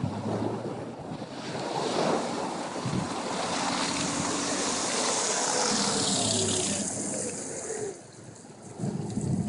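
Water rushing and spraying as a Mitsubishi Challenger four-wheel drive drives through a salt water creek, its engine running underneath. The rush builds over the first couple of seconds and drops off sharply about eight seconds in.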